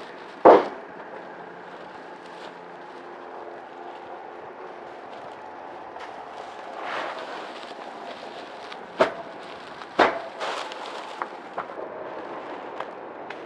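A bundle of dry thatching straw knocked down on a wooden plank with a dull thump, then the rustle of straw as the bundle is handled. About 9 and 10 seconds in come two more sharp thumps, followed by a few light knocks.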